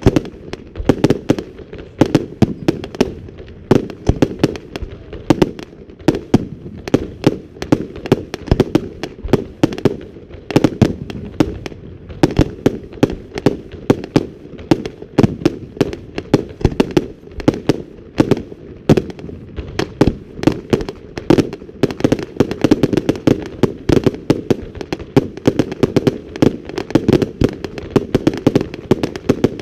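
Fireworks going off in a rapid, continuous barrage: many sharp bangs and cracks a second over a steady rumble of echoing blasts.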